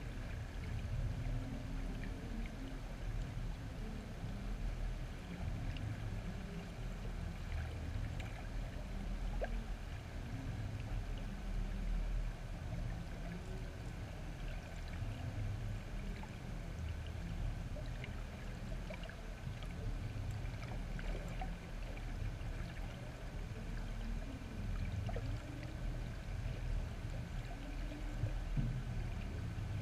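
Underwater ambience heard through a GoPro's waterproof housing: a steady low rumble of moving water and distant harbour traffic, with faint scattered ticks.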